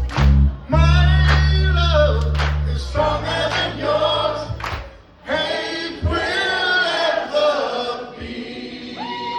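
A mixed pop-rock choir singing, breaking off briefly about five seconds in and thinning out near the end of the song.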